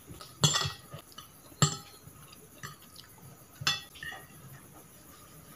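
Metal fork and spoon clinking and tapping against a china plate while gathering noodles: three sharp clinks with a short ring, about half a second, a second and a half and three and a half seconds in, with softer taps between.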